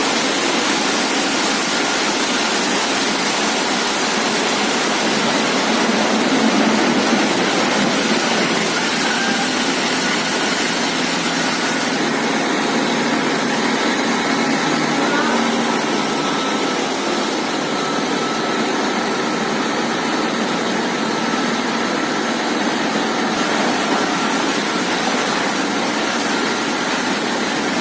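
Compressed air from a borewell compressor being blown down a borewell to flush it. A steady rushing noise of air and water being forced out of the bore, over the running compressor.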